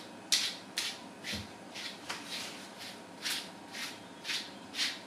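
A grooming brush raked through a Great Pyrenees's thick double coat, about ten quick swishing strokes at roughly two a second.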